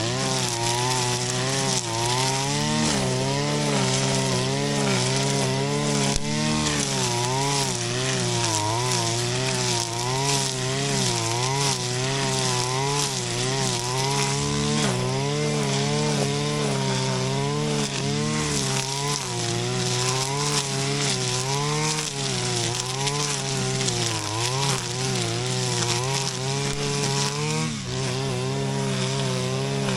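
Shindaiwa RK3026-PT brush cutter's 25.4 cc two-stroke engine running at high speed, its pitch wavering up and down as the cutting head works through grass.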